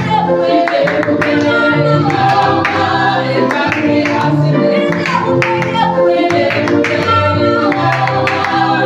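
Praise-and-worship music from a church worship team: singing voices over steady instrumental backing.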